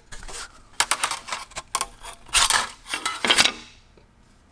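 Rusty steel rip-cut hand saw blade and its wooden handle being handled and taken apart on a workbench: a string of metallic clinks, clicks and scrapes, loudest in two bursts in the second half, then dying away.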